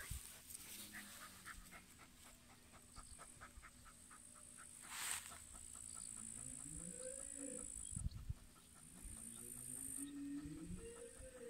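A dog digging with its nose down in mown grass: rapid, regular snuffling sniffs, about five a second, with scrapes and rustles in the dry grass. In the second half two long calls that rise and fall in pitch, each about two seconds, sound in the background.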